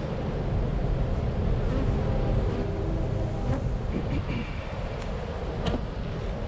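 Honey bees buzzing around open hive boxes over a steady low rumble. Two sharp knocks of hive woodenware being handled, about halfway through and again near the end.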